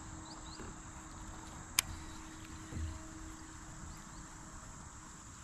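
Steady high-pitched drone of insects, with a single sharp click about two seconds in and a soft low thump a second later.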